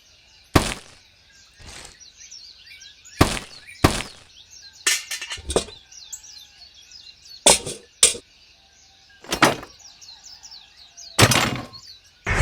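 About a dozen sharp knocks and clicks at irregular intervals, some in quick pairs and a short cluster about five seconds in, over birds chirping in the background.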